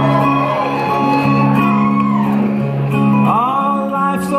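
Live acoustic music with no singing: an acoustic guitar playing along with held notes from a second instrument, with a few sliding notes about two and three seconds in.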